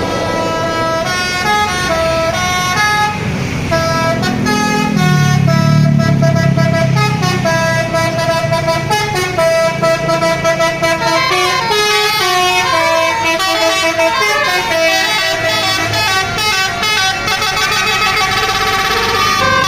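Telolet basuri musical air horn on a bus playing a fast tune of short stepped notes, some overlapping, with the bus engine running underneath, strongest a few seconds in.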